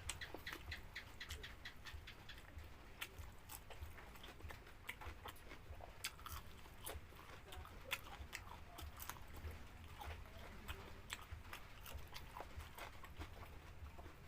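A person chewing and crunching food, likely a chili-pepper dish, with many short crisp crunches and mouth clicks spread irregularly throughout.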